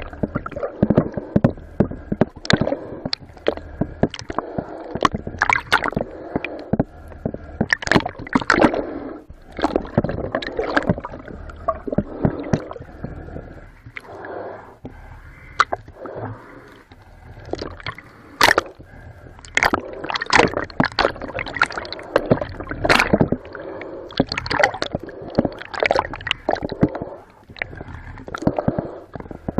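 Water splashing and sloshing close to the microphone, with many short sharp splashes throughout.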